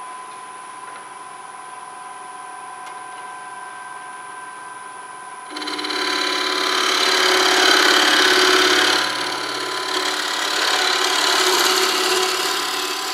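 Wood lathe running with a steady motor whine. About five seconds in, a bowl gouge bites into the spinning dry elm bowl blank and a loud, rough cutting noise takes over, with wood chips thrown off, lasting to the end.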